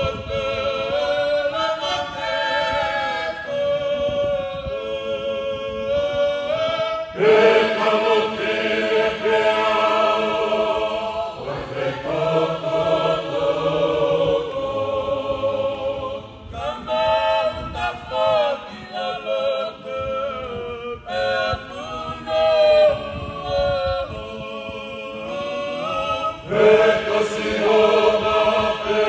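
Tongan church choir singing in parts, unaccompanied, many voices holding chords together, swelling louder about seven seconds in and again near the end.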